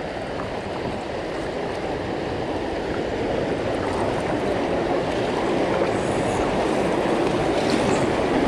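River water rushing through a weir chute, a steady roar that grows gradually louder.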